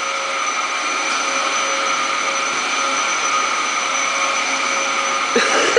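Vacuum cleaner running steadily on carpet, its motor giving a constant whine over a rush of airflow. A voice cuts in briefly near the end.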